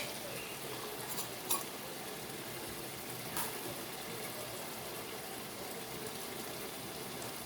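Split peas and onions cooking in a pot without oil, with a little water added, giving a steady soft sizzle. A few light clicks come in the first half.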